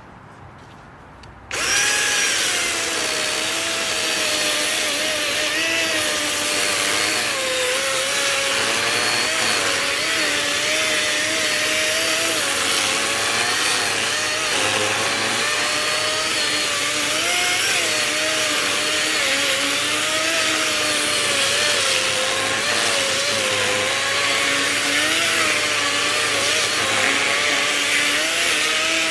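DeWalt cordless electric chainsaw starting up about a second and a half in and then running continuously while cutting wood, its motor whine wavering in pitch as the chain bites.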